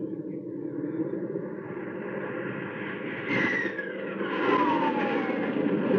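Radio-drama sound effect of a fighter plane's engine drone. About three seconds in it swells louder, and a falling whine sweeps down as the plane makes a pass.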